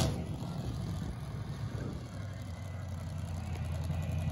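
Dragster engine idling with a steady low hum that grows a little louder near the end.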